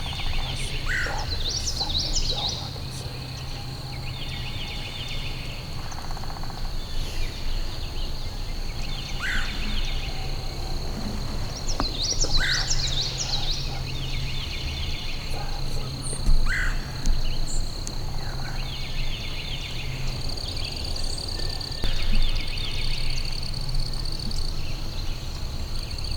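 Wild turkey gobbling several times at intervals of a few seconds, over other bird calls and a steady high drone.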